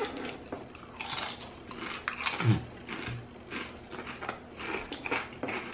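Pringles potato crisps being crunched and chewed: a run of irregular crackles and snaps. About two and a half seconds in there is one brief low 'mm' of a voice.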